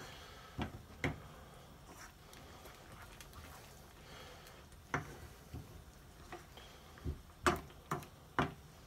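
A spatula stirring a simmering curry in a pan, with scattered light taps and scrapes against the pan and a quick run of them near the end.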